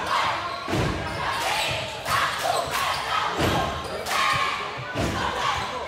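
A basketball bouncing several times on a gym floor, the thumps coming at irregular intervals of about a second, with voices echoing in the hall.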